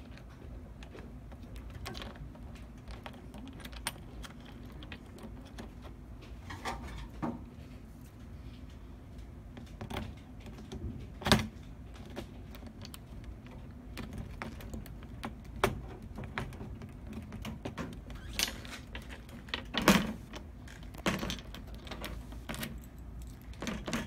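Small metal clicks and knocks of a cam lock being handled, with its keys jangling, as a Phillips screwdriver tightens the screw that holds the new cam. The clicks are scattered and irregular, with sharper knocks about eleven and twenty seconds in.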